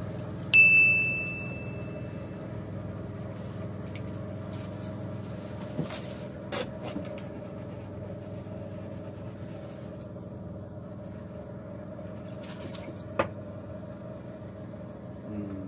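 Steady hum of a small boat's engine running. About half a second in, a sharp bell-like ring sounds once and fades over about two seconds, and a few short knocks follow later.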